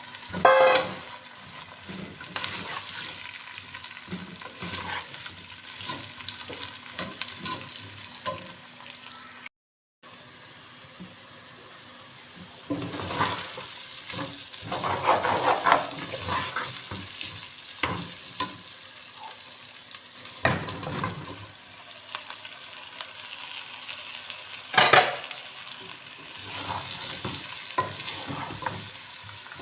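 Chicken sizzling as it fries in a pot, stirred with a spoon that scrapes and knocks against the pot now and then. Two louder knocks come near the start and about two-thirds of the way through, and the sound breaks off briefly about a third of the way in.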